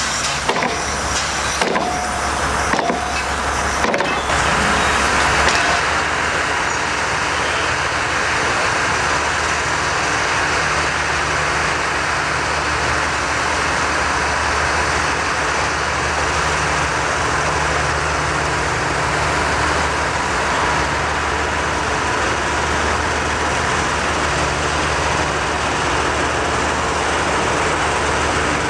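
Diesel locomotive engine running steadily as it draws slowly forward with its coaches, under a steady hiss of steam from a standing steam tank locomotive. A few sharp knocks and a brief squeal come in the first four seconds.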